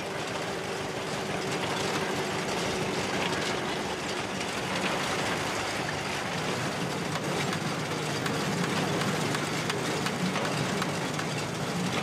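Vintage tractor engine and the belt- and chain-driven threshing machinery it powers, running steadily under load as wheat sheaves are fed in, with a dense mechanical clatter over a low engine hum.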